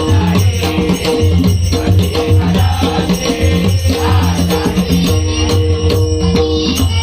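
Devotional abhang music: sustained, held instrumental notes under a steady jingling, rattling percussion, with little or no clear singing in this stretch.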